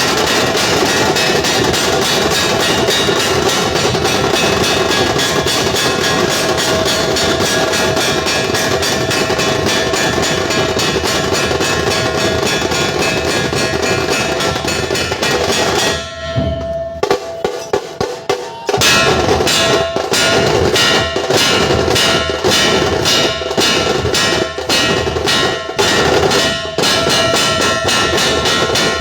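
Dhol-tasha troupe drumming, with big barrel dhols and sharp tasha drums beaten fast and loud. About two-thirds of the way in the drumming breaks off for a couple of seconds, with only a few scattered strokes, then comes back in a strong, even beat.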